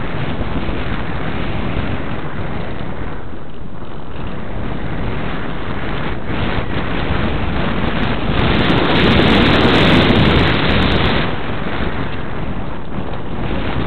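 Airflow rushing over the microphone of a camera riding on a ParkZone Radian glider in flight: a steady wind noise that grows louder for about three seconds past the middle.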